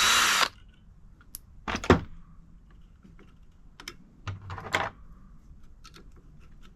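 Hand tools clicking and clanking on metal while the clutch spring bolts of a Suzuki DR200 engine are undone: a short burst of noise at the start, a sharp clank about two seconds in, another cluster of clatter past the middle, and scattered light ticks.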